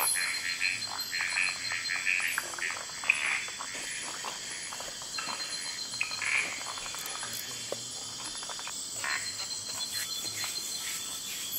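Frogs calling: short calls repeated several times a second, thinning out after about three seconds, over a steady high-pitched drone.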